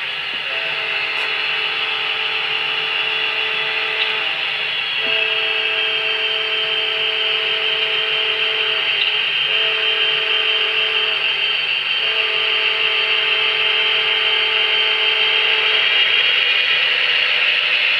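Diesel locomotive horn from a model locomotive's QSI sound decoder, blowing the grade-crossing signal: two long blasts, a short one and a long one. A steady mechanical running noise continues underneath.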